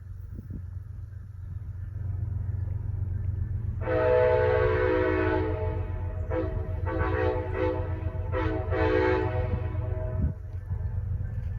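Train rumbling steadily while its locomotive's multi-note air horn plays a horn show: one long blast about four seconds in, then a quick run of short blasts.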